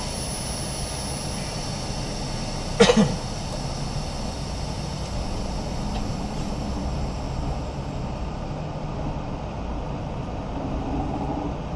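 Semi-truck diesel engine running steadily, heard from inside the cab, with one sharp cough from the driver about three seconds in.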